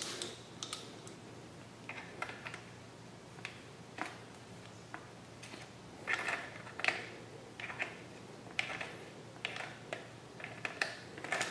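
Scattered light clicks and small knocks of steel pliers gripping and slipping on the plastic pinion gear of a small quadcopter motor, in irregular clusters, as the hand tries to turn a motor that is seized and will not rotate.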